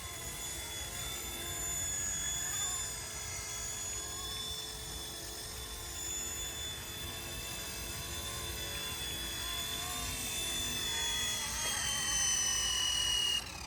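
RC Era C189 MD500 remote-control helicopter's electric motor and rotors whining steadily in flight. The whine drops in pitch over the last couple of seconds, then cuts off suddenly.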